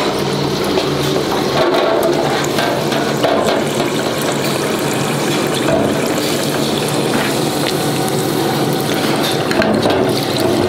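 Hot oil in an electric deep fryer sizzling and bubbling steadily around food being deep-fried in the wire basket.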